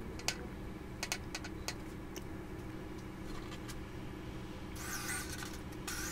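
Wooden tabletop board being handled and shifted on a steel stand frame: a few light knocks and taps, then a short scrape with a brief squeak about five seconds in, over a steady low shop hum.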